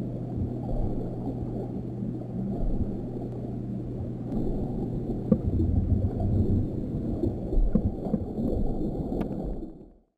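Underwater sound picked up at the camera: a low rumbling wash of water noise with a steady low hum and scattered faint ticks, fading out just before the end.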